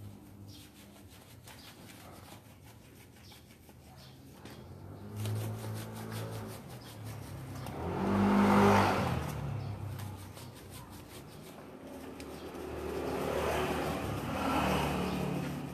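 A motor vehicle passing by: its engine sound swells to a peak about eight seconds in and fades, then swells again near the end.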